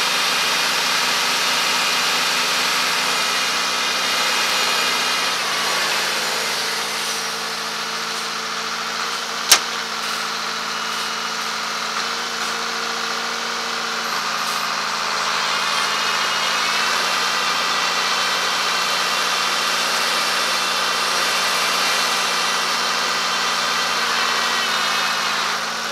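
Diesel engines of a chained-up tractor and the lorry it is towing, running steadily as they try to get the stuck lorry up a snowy hill. The engine note shifts pitch a couple of times. One sharp click comes about nine and a half seconds in.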